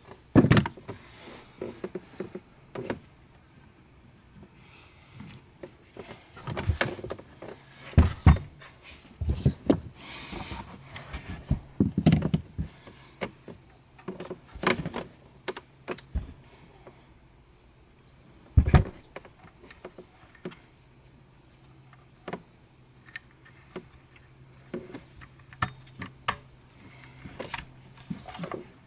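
Irregular clicks, knocks and clunks of hand tools and parts being handled while working on the Audi A8 D3 boot-lid opening motor, with a faint high chirp repeating about twice a second throughout and a low hum joining about ten seconds in.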